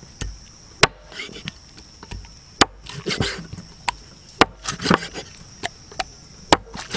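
A blade chopping into wood: four sharp strikes roughly two seconds apart, with lighter knocks and scraping between them.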